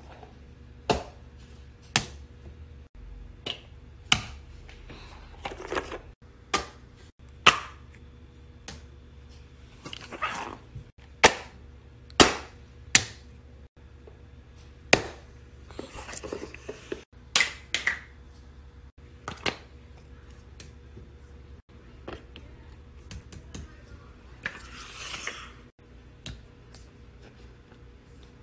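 Fidget toys being played with: a string of sharp clicks and pops at irregular spacing, about one a second, with a couple of longer rustling or squishing stretches, over a faint steady hum.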